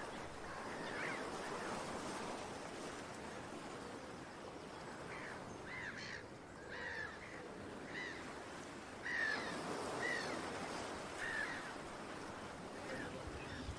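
Faint outdoor ambience with a bird giving short, repeated calls about a second apart through the middle and later part.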